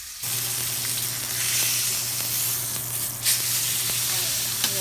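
Beef pot roast searing in a hot stainless steel skillet, sizzling steadily. A sharp knock comes about three seconds in as the meat is turned over, and a smaller click near the end.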